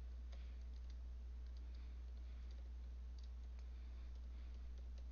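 Soft, irregular keystrokes on a computer keyboard as a line of code is typed, over a steady low hum.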